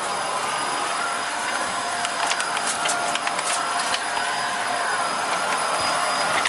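A vacuum cleaner motor running steadily, with a rattle of sharp clicks about two to three and a half seconds in.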